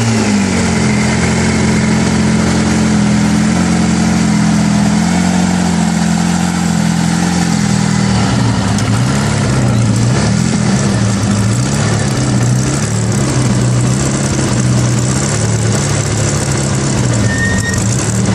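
Bugatti Type 35 replica's straight-eight engine idling, loud and steady, its pitch wavering gently up and down in the second half.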